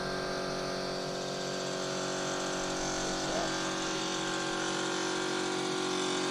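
Air compressor running with a steady hum, feeding the paint spray gun between passes.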